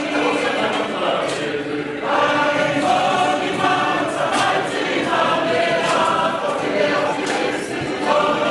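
A group of voices singing together as a choir, holding long notes in phrases that break every second or two.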